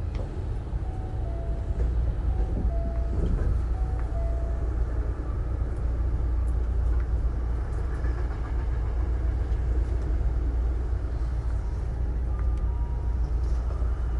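Hankyu 9000-series electric commuter train with Toshiba IGBT VVVF drive running along the line, a steady low rumble of wheels and running gear heard from inside the car. Short two-note falling tones repeat a few times in the first several seconds.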